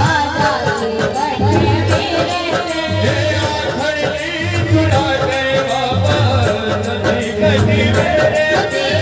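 Live bhajan music through a PA system: a woman singing into a microphone over instrumental accompaniment, with a steady low beat.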